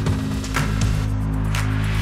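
Background music with sustained low notes and sharp percussive hits about a second apart.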